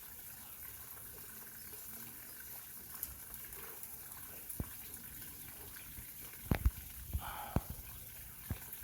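Steady background hiss with a handful of sharp clicks or knocks, the loudest pair about six and a half seconds in and others scattered through the second half.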